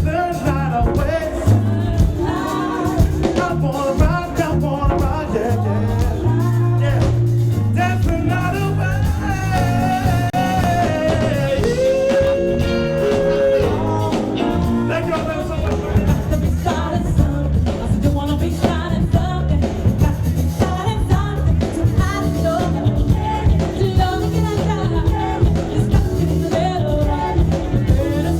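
Pop music with a steady beat and a lead singer, with one long held sung note about halfway through.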